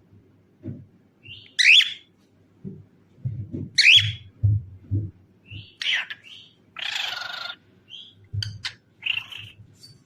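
Cockatiel calling: a few sharp rising chirps a couple of seconds apart, then a harsh screech about seven seconds in and some short quick notes, with low bumps underneath.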